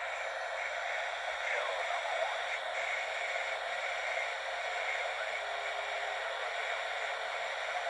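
Steady static hiss from a Fisher-Price toy walkie-talkie's speaker, the receiver open on a CB channel.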